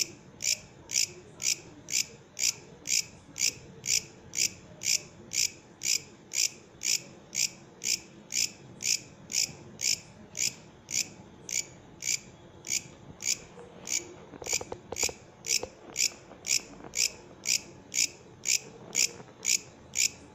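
Katydid (bush cricket) singing: short, sharp, high-pitched chirps repeated steadily about twice a second.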